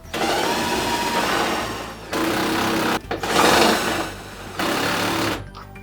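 Cordless drill with a socket running in four bursts of one to two seconds each, tightening the nuts onto the mounting bolts.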